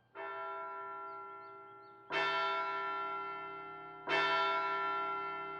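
A large bell tolling, struck three times about two seconds apart, each stroke ringing on and slowly fading before the next.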